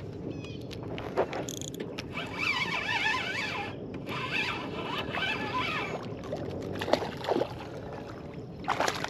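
Spinning reel being cranked on a retrieve: a gear whine that rises and falls with each turn of the handle, in two spells, with a few knocks from handling the rod.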